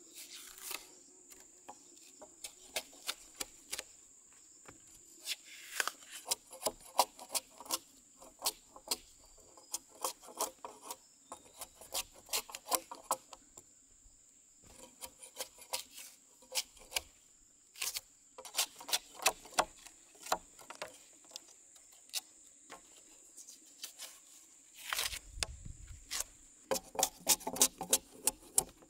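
Long-bladed knife chopping and scraping bark off a green log, the bark peeling away in strips: a run of sharp irregular knocks and tearing scrapes, several a second in bursts, with a low thump about 25 seconds in. A steady high insect drone continues underneath.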